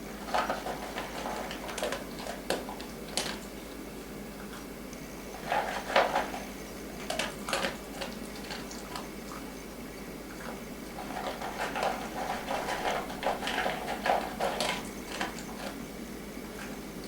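Light clattering and knocking: irregular clusters of small clicks and knocks, coming in three separate spells, over a faint steady background.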